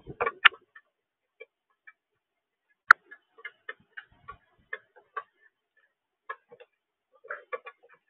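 Irregular sharp clicks and taps of a male northern cardinal pecking and cracking seed on a plastic tray feeder, with a brief scuffle of it shifting on the tray at the start and one louder crack about three seconds in.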